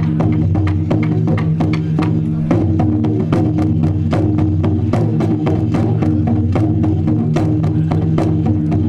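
Music with a steady low sustained drone under quick, busy percussion strikes like a wood block or drum.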